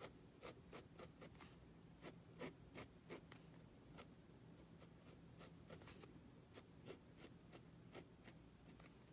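Near silence broken by faint, irregular scratches and taps of a drawing tool on paper, most of them in the first three seconds.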